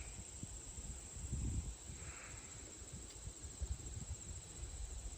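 Outdoor ambience: uneven low wind rumble on the microphone under a steady, high insect hum.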